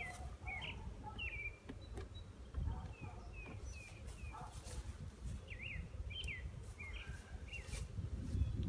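Small birds chirping: many short, quick calls scattered throughout, over a steady low rumble.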